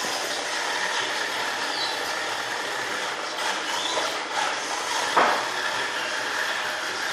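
Robot vacuum cleaner running: a steady whirr of its suction fan and brushes, with a brief knock about five seconds in.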